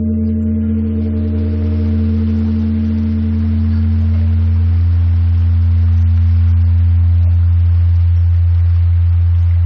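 Large bronze Korean temple bell (beomjong) ringing on after a strike: a deep steady hum with higher overtones that slowly fade. A steady hiss joins about a second in.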